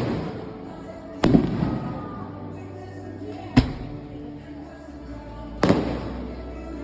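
Fireworks shells bursting overhead: three sharp booms about two seconds apart, each with a rumbling tail, over music playing in the background.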